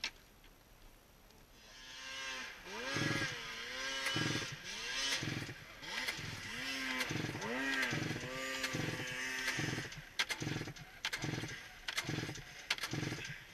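Polaris IQ 600R two-stroke snowmobile engine being pull-started again and again by its recoil starter rope, each yank turning the engine over with a thump and a rising-and-falling whir, starting about two seconds in; the engine does not catch and run, a hard-starting sled.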